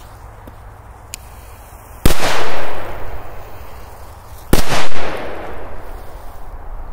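Two firecrackers exploding about two and a half seconds apart, each a sharp, very loud bang followed by a short echo that fades over about a second.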